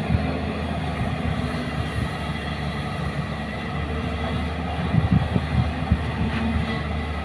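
Diesel engine of a JCB excavator running steadily under working load, with a cluster of low knocks about five seconds in.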